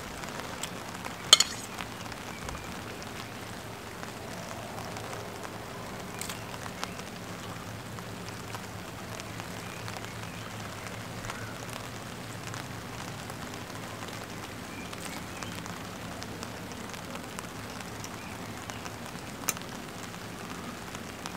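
Steady patter of rain on a tarp overhead, with metal tongs clinking against the cooking pot and plate a few times, the sharpest click about a second in.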